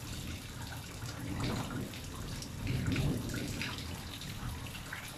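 Rain falling and dripping, with many scattered drops ticking and splashing, over a low rumble that swells twice.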